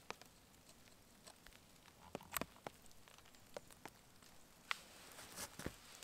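Faint, scattered clicks and light knocks as a hand adjusts a wooden pot-hanger stick, with a lidded cooking pot hanging from it by a wire bail. The clearest come a little over two seconds in and again near the end.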